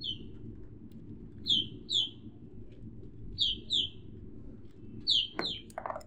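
A bird chirping: short downward-sliding chirps, mostly in pairs about half a second apart, over a low steady hum.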